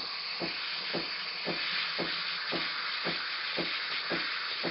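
Steam wand of a Krups XP5240 espresso machine hissing steadily into a stainless steel pitcher, with a soft tick about twice a second. The wand, repaired with a steel threaded insert, steams with no leak at its ball joint.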